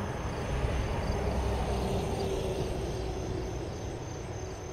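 Distant thunder rumbling low and slowly fading, with crickets chirping faintly and steadily in the background.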